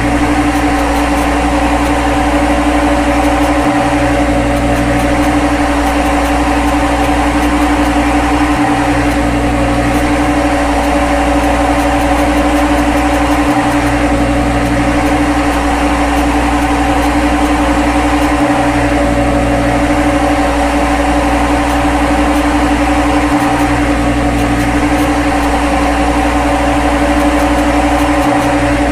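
Steady synthetic machine hum of a CNC lathe simulator's spindle and cutting sound, a few steady tones over a low rumble. The low rumble breaks briefly about every five seconds, as in a repeating sound loop.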